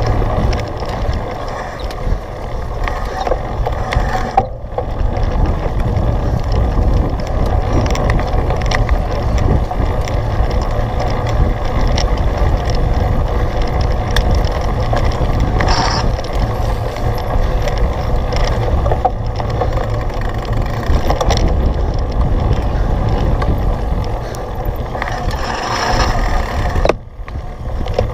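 Cyclocross bike ridden over rough ground: a heavy, steady rumble of wind and ground noise on the microphone, with the frame and drivetrain rattling and clicking. Near the end the rumble drops away and clicking is left.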